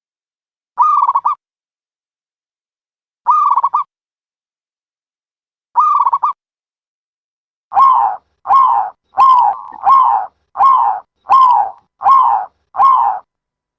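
Recorded dove calls played as a trapping lure: short coos repeated about every two and a half seconds, then, from about eight seconds in, a quicker run of eight coos.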